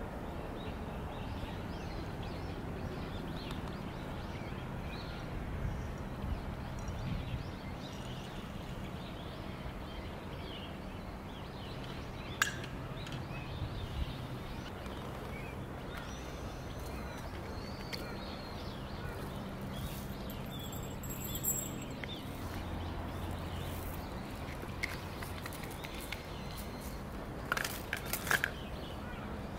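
Light handling of a paper filter bag and seeds over a steady outdoor background, with a few sharp clicks. Near the end, coriander seeds poured from a glass tube patter into a glass jar in a short run of clicks.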